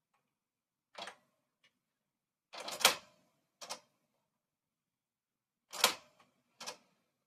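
Typewriter clacking: about six separate sharp mechanical strikes at uneven intervals, the loudest about three seconds in and again near six seconds.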